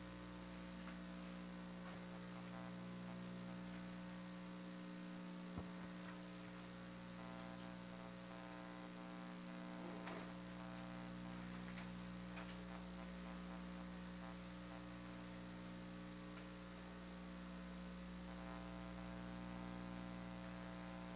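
Faint, steady electrical mains hum, a buzzy stack of even tones that holds unchanged, with a single small click about five and a half seconds in.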